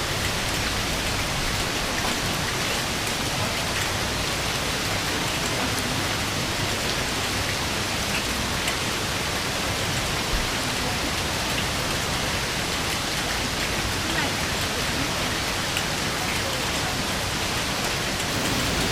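Heavy rain falling steadily: a dense, even hiss of downpour with faint scattered drop ticks.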